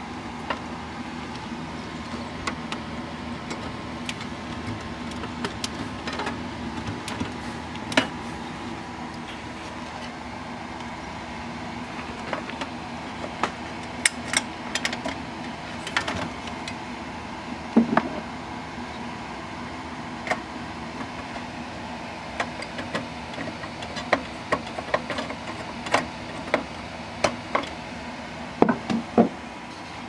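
Scattered clicks, taps and knocks of hands handling cables and parts inside an open Dell Dimension 2400 desktop's sheet-metal case, more frequent in the second half, with a few louder knocks near the end, over a steady low hum.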